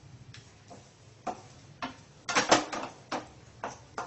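Spatula knocking and scraping against a stainless steel pan while stirring chicken in masala: irregular clicks roughly every half second, with a louder run of scrapes about halfway through.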